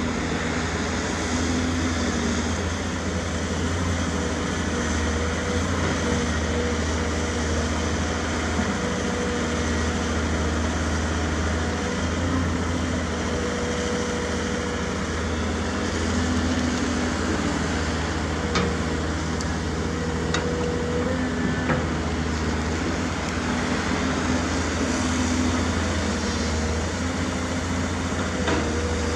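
Diesel engine of heavy earthmoving equipment running steadily, with three brief sharp knocks in the second half.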